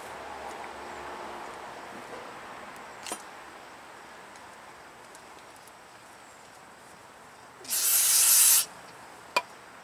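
A single burst of aerosol spray cleaner, about a second long near the end, hissing evenly as old grease is cleaned off a brake caliper slide pin. Two sharp clicks of metal parts being handled come a few seconds in and just after the spray.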